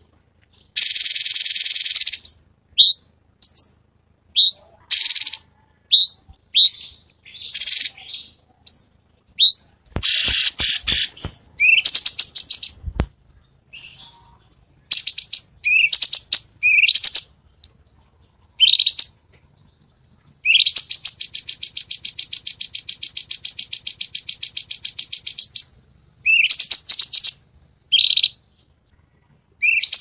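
Cungkok (leafbird) singing in full song. Short rising whistled chirps come one after another between long, rapid, buzzy trills; the longest trill lasts about five seconds, past the middle. A few sharp clicks sound near the middle.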